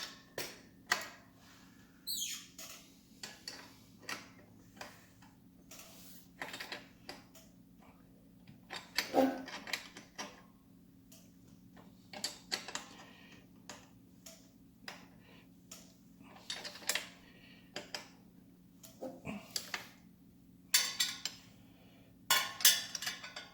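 Hand wrench clinking and knocking against the exhaust mounting nuts and fittings as they are tightened: irregular short metallic clicks scattered throughout, with a denser cluster near the end.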